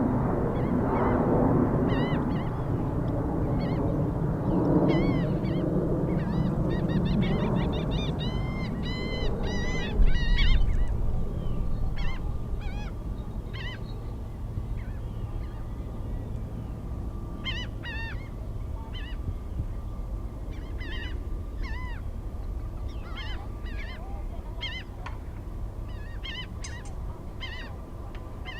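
A flock of birds giving repeated short honking calls. Underneath is a low jet-engine rumble that fades over the first ten seconds, and a low thump comes about ten seconds in.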